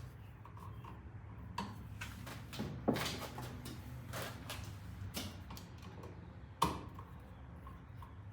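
Flathead screwdriver backing the screws out of a wall outlet: scattered small clicks and scrapes, the sharpest about two-thirds of the way in, over a low steady hum.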